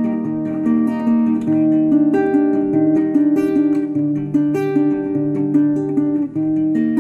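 Background music: a plucked acoustic guitar melody with steady picked notes.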